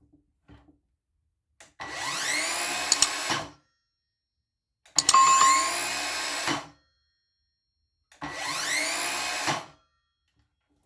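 Evolution R185SMS 18V cordless sliding mitre saw's brushed DC motor triggered three times with no load. Each time it whines up quickly in pitch to full speed, runs steadily for about a second and a half and stops. Its sound is not too loud at all.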